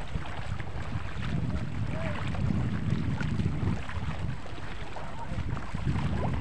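Wind buffeting the phone's microphone, a steady, uneven low rumble, with faint distant voices now and then.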